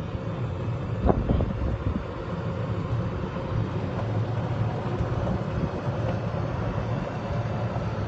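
Golf cart riding along a rough track: a steady low rumble with wind buffeting the microphone, and a few brief knocks from bumps about a second in.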